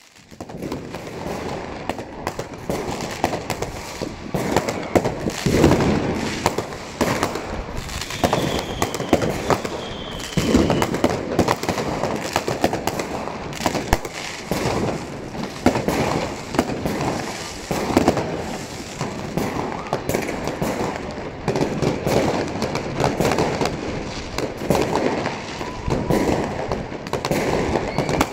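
Many fireworks going off at once: a dense, unbroken run of bangs and crackles, with a couple of faint whistles about eight to ten seconds in.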